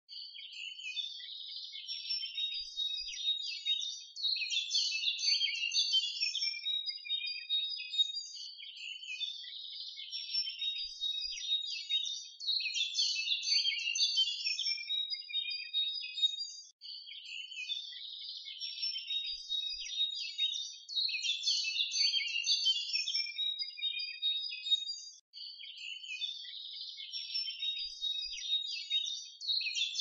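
Dense, busy bird chirping and twittering, a recording loop that repeats itself about every eight and a half seconds.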